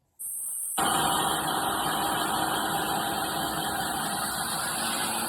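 JPT 12V cordless drill running and boring a hole into wood. It starts abruptly under a second in and then runs steadily.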